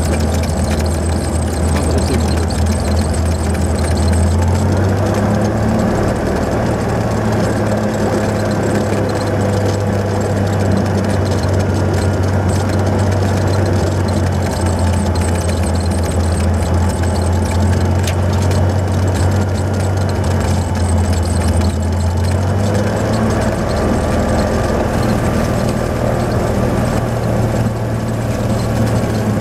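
Cessna 182 Skylane's six-cylinder piston engine and propeller running at low taxi power, heard from inside the cockpit. A steady low drone that shifts slightly in pitch a couple of times.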